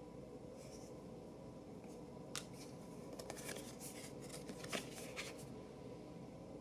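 Playing cards being handled: a quick run of crisp clicks and flicks of card stock for about three seconds in the middle, over a low steady hum.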